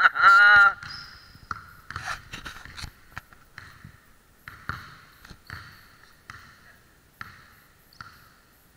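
Basketball dribbled on a hardwood gym floor, each bounce a sharp knock with a ringing echo off the large hall, coming at uneven intervals about one or two a second. A brief wavering high-pitched sound comes first, in the opening second, and is the loudest part.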